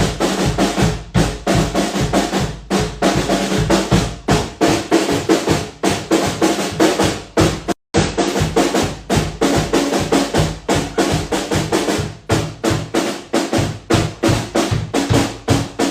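A drum kit played fast, with rapid snare and bass drum strokes and rolls, broken off by a very short gap about eight seconds in.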